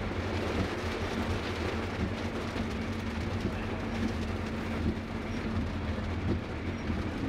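Steady road noise inside a moving car's cabin: a low rumble with a steady low hum.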